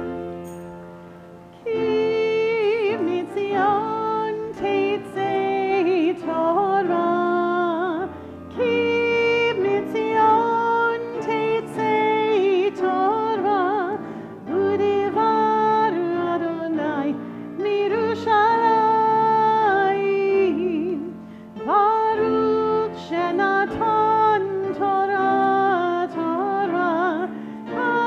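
A woman's solo voice singing a slow liturgical melody with vibrato, in phrases with short breaks, over held instrumental accompaniment chords. It begins about two seconds in.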